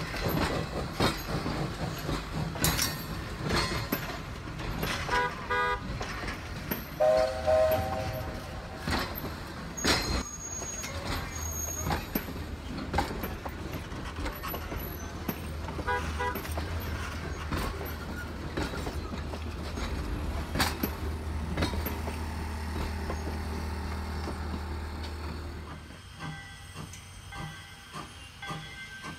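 Steam-hauled passenger train rolling past: the wheels click over rail joints under a steady low rumble, with a few short whistle toots. Near the end it drops to a quieter, more distant level.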